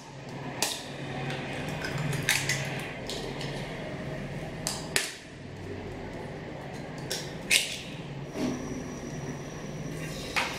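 Cookware and utensils knocking and clinking while an omelette is prepared: about eight separate sharp knocks spread out over a low steady hum.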